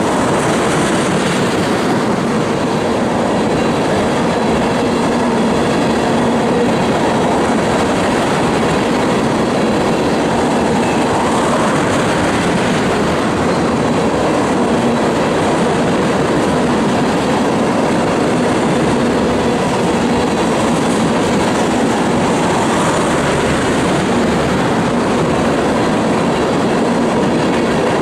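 Loaded ethanol tank cars of a long freight train rolling past, a steady loud wheel-on-rail noise that holds at one level throughout.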